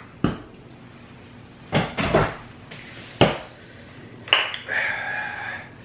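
Drinking glass and plastic water bottle being set down and handled on a table: a handful of separate knocks and clatters, with a small cluster about two seconds in.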